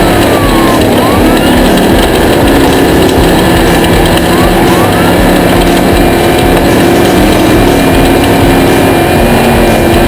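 Loud, steady engine noise from off-road racing vehicles.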